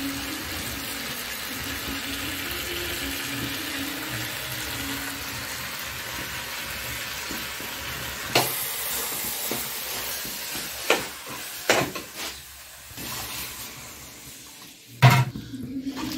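Potatoes and spices frying with a steady sizzle in a steel kadhai, a spatula knocking against the pan a few times in the second half. Near the end a louder splash as water is poured into the hot pan, turning the fry into a curry.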